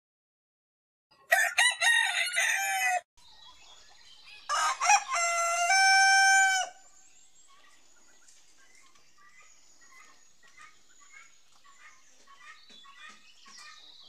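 Domestic rooster crowing twice, about a second and a half apart; the second crow ends on a long held note. Faint clucking and cheeping of hens follows.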